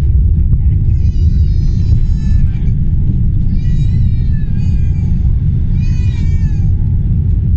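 Airliner's jet engines at takeoff thrust, heard from inside the cabin as a loud, steady low rumble through the takeoff roll and rotation. Over it come three high, drawn-out wailing cries from within the cabin, each one to two seconds long.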